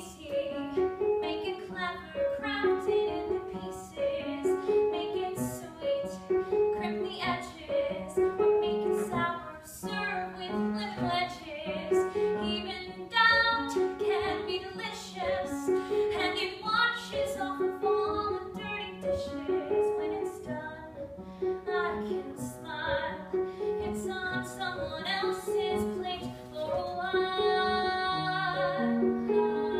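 A woman singing a musical-theatre solo, accompanied by piano.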